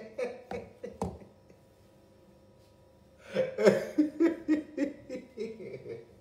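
A man laughing, breaking out about three seconds in after a short lull, with a couple of short clicks near the start.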